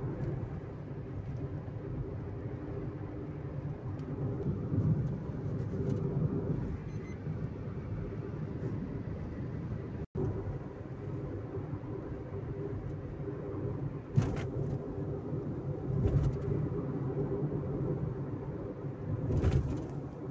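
Steady road and engine noise inside a car cruising on a highway, a low rumble with a faint hum. The sound cuts out for an instant about halfway, and a few louder low thumps come in the second half.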